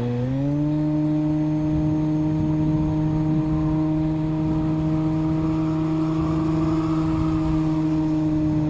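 Tower Hobbies Razor 3D RC plane in flight, recorded on board: a steady, pitched motor-and-propeller hum that rises in pitch just after the start as the throttle comes up, then holds level.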